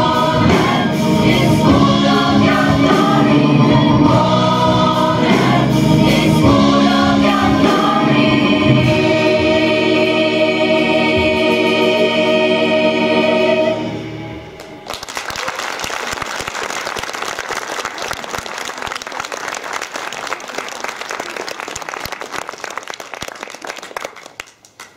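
Gospel choir singing, ending on a long held chord that cuts off about fourteen seconds in. Audience applause follows for about ten seconds, fading near the end.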